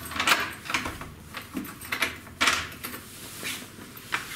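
A room door being unlocked and opened: several sharp clicks and knocks of the lock, handle and door, the loudest a little past halfway through.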